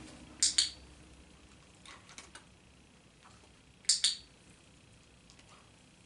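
A dog's collar tags clinking as she wriggles: two quick double jingles, about half a second in and again about four seconds in, with a few fainter ticks between.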